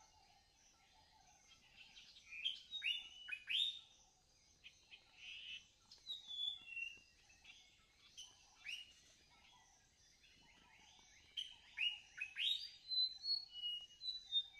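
Songbirds chirping: many short sweeping chirps and brief whistled notes, busiest a couple of seconds in and again near the end.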